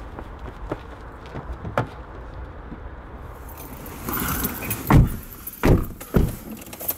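Car doors being handled, with a rustle and then three heavy door thumps in quick succession in the second half.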